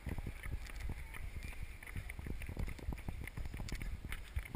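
Running footfalls of an adult and a small child on asphalt, uneven thuds several times a second, over a low wind rumble on the microphone.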